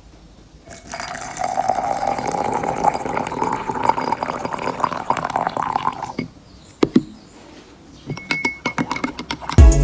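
Liquid poured into a glass, the pitch of the stream rising slowly as the glass fills, stopping after about five seconds. A sharp clink follows, then a few light clicks near the end.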